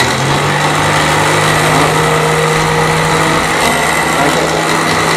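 Asanzo BF-400S food processor's 450 W motor running on speed 1 with the pepper-grinder jar fitted: a steady hum that spins up just as it starts. It runs very strongly.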